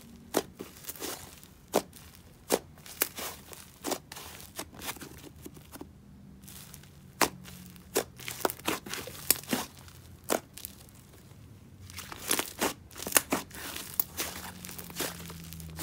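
Fluffy, sizzly butter slime being pressed, poked and stretched by hand, giving irregular sharp pops and crackles. There is a quieter spell about six seconds in and a dense run of pops a couple of seconds before the end.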